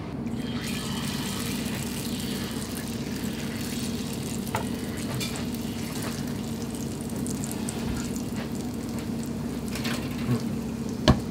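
Test drops of tempura batter frying in hot oil in an iron frying pot: a steady sizzling hiss with scattered small pops over a low steady hum, and one sharp click near the end. The drops rising to the surface before reaching the bottom show the oil is hot enough to fry.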